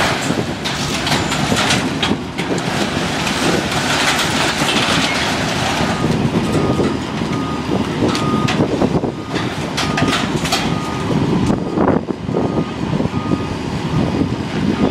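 A heavy vehicle's engine runs with scattered metal clanks. About six seconds in, its reversing alarm starts, a beep repeating a little more than once a second, as the machine backs up.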